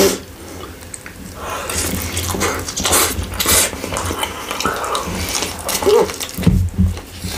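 Close-miked eating sounds: irregular wet chewing and mouth clicks from someone eating kebab pizza.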